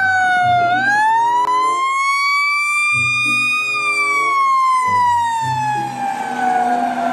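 Fire engine siren wailing: one slow wail whose pitch rises for about three seconds and then falls gradually, with lower steady tones underneath.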